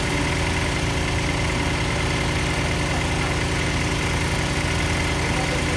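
Engine of a small trailer-mounted borehole drilling rig running steadily, with a constant high-pitched whine over the engine note.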